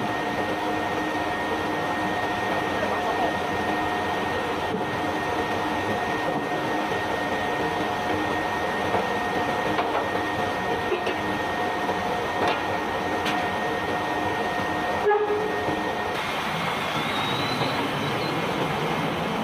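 Barge unloading machinery running steadily with bulk cargo pouring: a continuous rushing noise under a steady mechanical whine. The whine drops out about fifteen seconds in, just after a brief knock.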